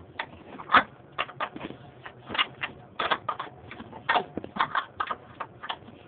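Ratchet wrench clicking in short, irregular runs as the throttle body's mounting bolts are tightened.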